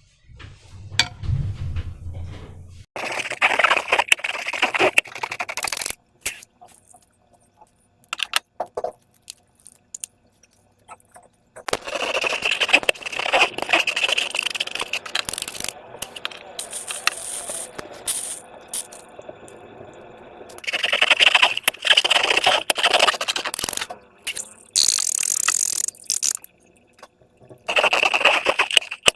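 Slime being worked by hand with transparent balloons: bursts of dense sticky clicking and scraping a few seconds long, with short pauses between.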